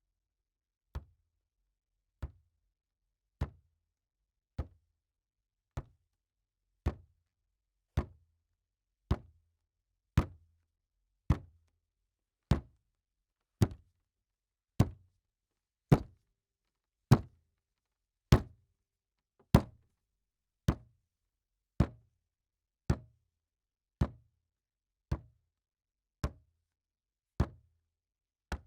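Single slams on a wooden table, one a little over every second, each a sharp knock with a short low thud. They grow louder toward the middle and softer again near the end.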